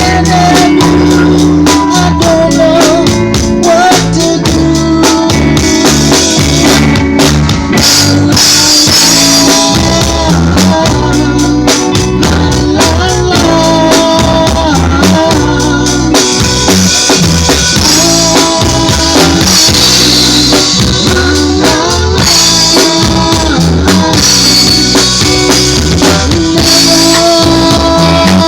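A band playing: a drum kit keeps a steady beat with snare and bass drum under a bass line and a melody line, and cymbal wash swells in and out several times.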